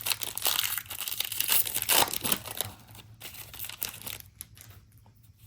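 Crinkling and tearing of a trading card pack wrapper being handled and opened, loudest for the first three seconds or so, then dying down.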